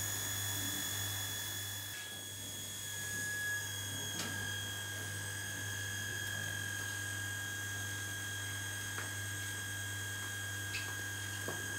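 Steady low electrical-type hum with a thin, high-pitched whine held on one note, and a faint click or two.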